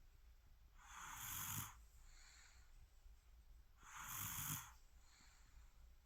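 A little baby snoring quietly while asleep: two snoring breaths about three seconds apart, each lasting under a second, with fainter breaths in between.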